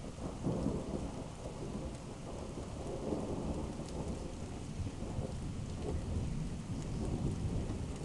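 Thunder rumbling low and long, swelling and fading several times, over steady rain.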